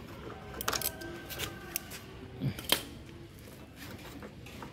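Hand work on a scooter's rear plastic bodywork and frame: a scatter of sharp clicks, knocks and small rattles from a screwdriver and plastic parts being handled, the loudest a single sharp click near the middle, with brief faint squeaks in the first half.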